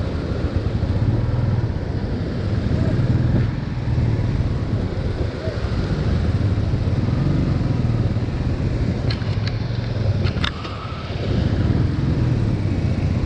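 Motorcycle engine running over the steady rush of a glacier-melt stream flowing across the road, with a few short clicks about nine to ten seconds in.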